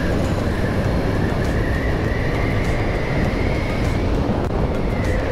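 Yamaha XJ600 inline-four motorcycle engine running steadily under way, mixed with wind noise. A faint high whine rises slowly and drops away near the end.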